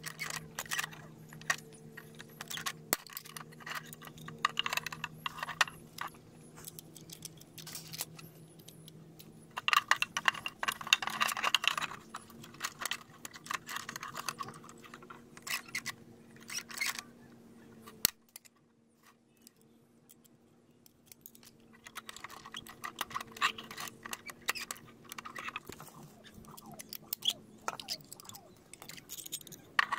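Hand pop-rivet tool setting rivets through PVC pipe: a run of sharp metallic clicks and snaps as its handles are squeezed, densest a little before the middle, with a few seconds of near quiet past the middle.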